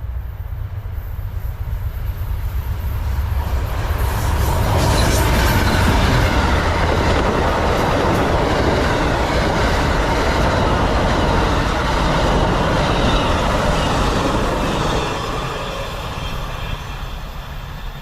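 Amtrak passenger train passing close by: the rumble of its wheels on the rails builds about three seconds in, stays loud for about ten seconds, then eases off.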